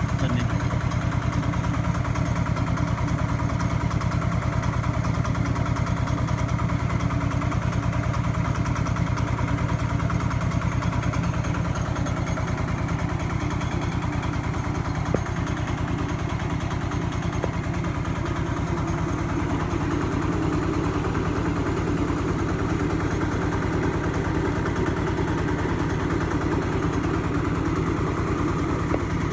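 Small household rice mill running steadily, belt-driven by the single-cylinder diesel engine of a two-wheel walking tractor, which chugs at an even rapid beat through the whole stretch.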